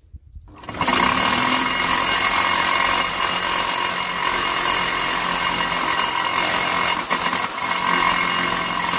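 Reciprocating saw cutting through the metal exhaust pipe of a Mazda MX-5, starting about a second in and then running steadily.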